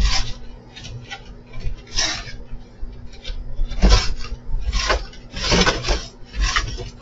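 Coyote and cat scuffling around a lounge chair on a wooden deck: a string of short hiss-like scratchy bursts, with dull thumps about four seconds in and again a little before six seconds.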